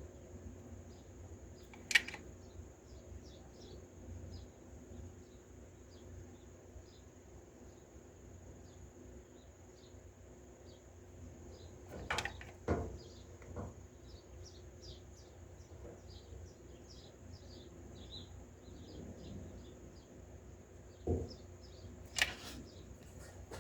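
Quiet outdoor ambience: faint, quickly repeated chirping over a steady high-pitched drone and a low hum. A few sharp clicks and knocks break in, the loudest about two seconds in, then a cluster around twelve seconds and two more near the end.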